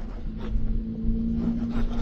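Low road rumble of a car driving, heard inside the cabin, with a steady low hum setting in shortly after the start.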